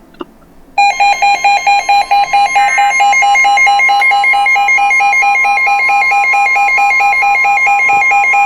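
Weather radio sounding a warning alert: a steady NOAA Weather Radio warning alarm tone with a loud, rapidly pulsing electronic beep over it, starting about a second in. It signals an incoming severe thunderstorm warning.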